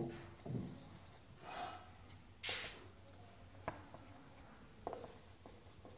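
Marker writing on a whiteboard, a few soft strokes and taps, with short breaths. Behind it a steady, high, fast-pulsing trill, like a cricket chirping.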